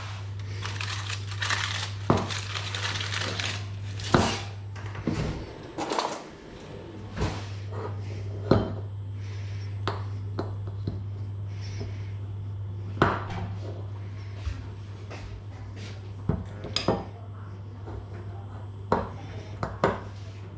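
Kitchen clatter of dishes, pans and cutlery: sharp clinks and knocks at irregular intervals over a steady low hum, with a hiss during the first few seconds.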